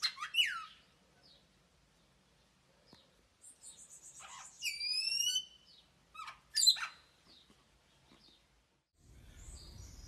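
Variable oriole (encontro) singing: short phrases of clear whistled notes, several gliding down in pitch, coming in separate bursts at the start, around four to five seconds in, and again around six and a half seconds in.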